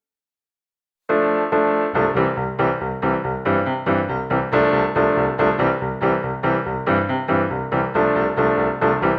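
Background music: a keyboard tune on piano or electric piano with a steady beat, starting abruptly about a second in after a moment of silence.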